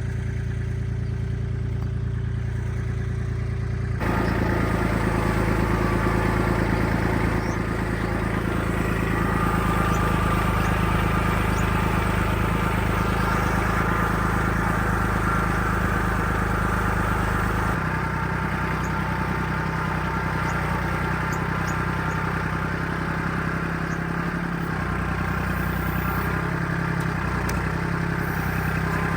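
An engine running steadily, its note changing abruptly about four seconds in and again near eighteen seconds.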